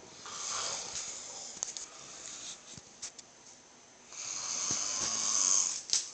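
A sleeping man snoring: two long snoring breaths about four seconds apart, the second one louder.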